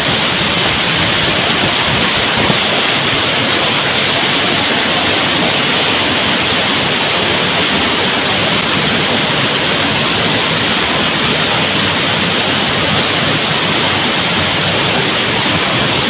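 Waterfall pouring into a plunge pool close by, with a curtain of spray falling beside it: a loud, steady rush of water.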